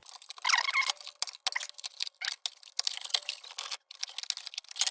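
Wire globe guard being worked off an Embury Air Pilot kerosene lantern: a fast, irregular run of metal clicks and scrapes, with a brief squeak about half a second in as the thin wire bends.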